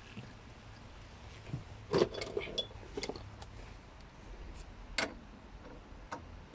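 Steel wrench clinking and knocking against the rusty rear brake caliper carrier as it is fitted to the 21 mm carrier bolt: a few sharp metallic clinks, loudest about two seconds in and again at five seconds.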